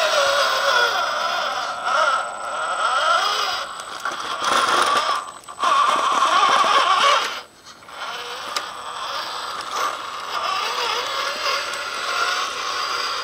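Electric drivetrain of a Cross RC UC6 6x6 scale truck whining through its gears, rising and falling in pitch as the throttle is worked at crawling speed. It cuts out briefly twice, about five and about seven and a half seconds in.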